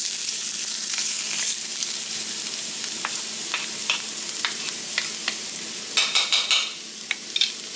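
Garlic sizzling in hot olive oil in a frying pan, with scattered crackles and pops. A wooden spoon stirs and scrapes in the pan, in a quick run of strokes about six seconds in.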